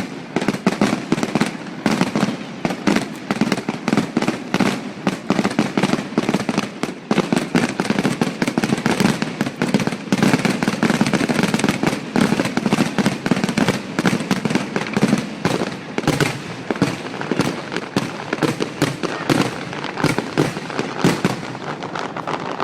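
Fireworks display: a dense, continuous barrage of shell bursts and crackling, many reports a second, easing a little near the end.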